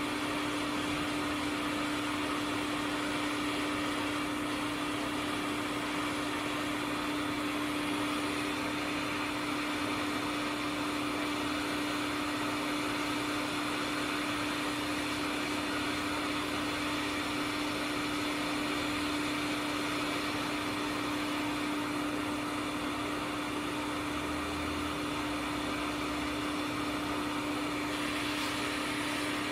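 Hot air rework station blowing steadily, a constant whir with a steady hum, heating a donor circuit board to desolder a fuse.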